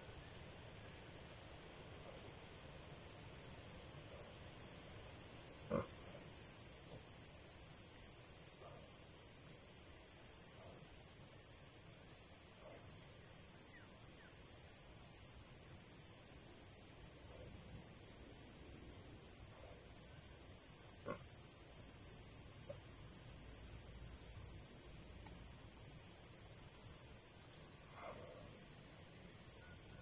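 Steady high-pitched chorus of insects, swelling over the first several seconds and then holding steady. A few faint brief sounds come from close by, the clearest about six seconds in.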